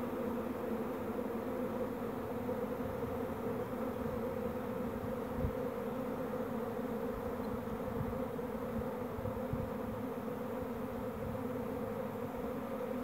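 Honeybee swarm in flight: the steady, dense hum of many bees filling the air while the swarm is still gathering to cluster. A few dull low thumps sound around the middle.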